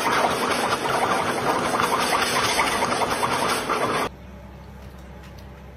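Vacuum cleaner motor running with a loud, steady rushing noise. It cuts off abruptly about four seconds in, leaving a quieter low hum.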